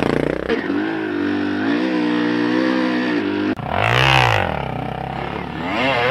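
Dirt bike engines running on a trail: a steady engine note, then a bike passes close by about four seconds in, its pitch rising and falling as it goes, and engine revs climb again near the end.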